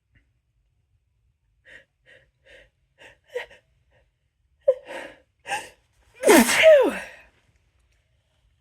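A person's hitching build-up to a sneeze: about eight short, catching gasps in quick succession. Then one loud, powerful sneeze with a falling pitch, about six seconds in.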